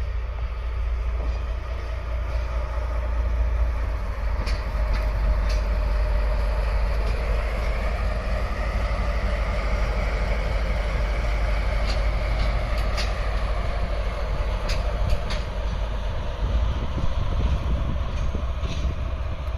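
JR East DE10 diesel locomotive running past on the line, a steady low rumble with a mid-range swell that peaks about halfway through, and sharp clicks of wheels over rail joints.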